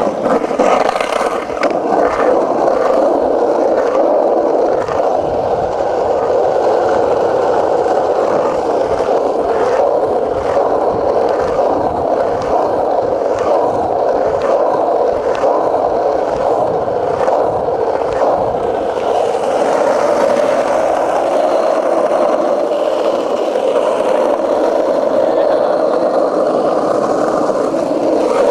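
Cruiser skateboard wheels rolling steadily over concrete, a continuous rumble with regular clacks about once or twice a second as the wheels cross pavement joints.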